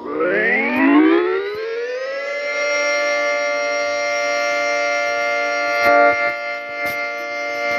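Tornado warning siren winding up, its tones rising over about two seconds, then holding a steady wail. Two brief clicks come near the end.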